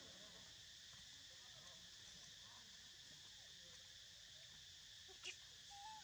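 Faint forest ambience: a steady high insect drone, with one sharp click about five seconds in and a brief high squeak near the end.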